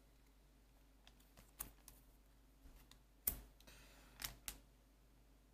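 Weiss Schwarz trading cards being handled: a few faint, scattered clicks and rustles, the sharpest a little past three seconds in.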